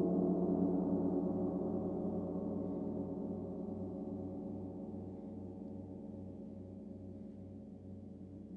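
Several low percussion tones ringing on together and slowly fading, with a slow pulsing beat about twice a second in the lowest note.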